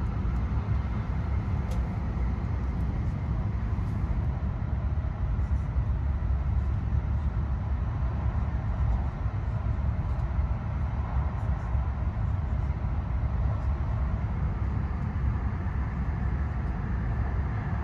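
Cabin noise inside an E5-series Shinkansen bullet train running through an undersea tunnel: a steady low rumble of wheels and air with no changes.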